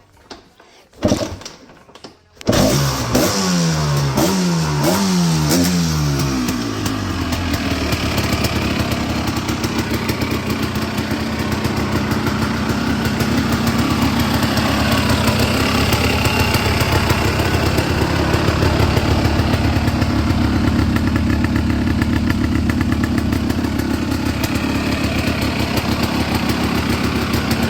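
1986 Honda ATC250R's two-stroke single-cylinder engine being started. After a short burst about a second in, it catches a moment later and is revved in several quick blips that rise and fall in pitch, then settles into steady running.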